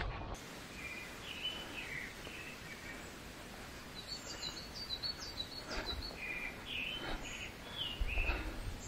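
Small forest birds chirping in short repeated phrases, lower notes first and higher, quicker notes from about four seconds in. A few soft footsteps on a dirt trail come in the second half.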